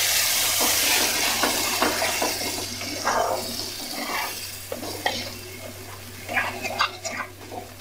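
Tomato paste and onion masala sizzling in hot oil in a non-stick kadai while a wooden spatula stirs and scrapes it around the pan. The sizzle dies down gradually, leaving a run of short spatula scrapes in the second half.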